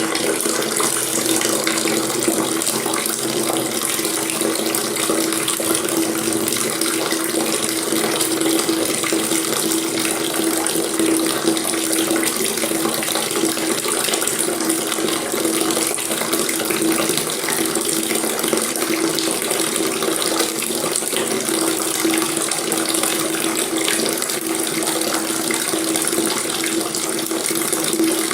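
Water running steadily from a tap into a sink or basin, an even splashing hiss with a steady low tone under it.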